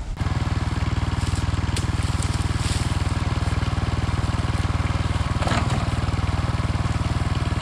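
Small underbone motorcycle engine idling steadily, with a fast even pulse throughout. A few sharp knocks sound over it, as oil palm fruit bunches are thrown into its trailer.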